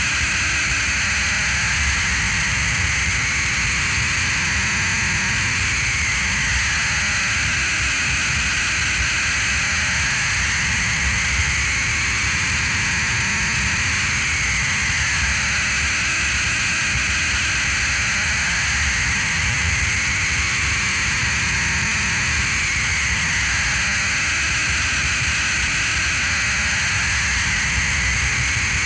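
Noise-music drone: a loud, steady wall of hiss with a wavering tone that slowly rises and falls every few seconds, and thin steady high tones above it.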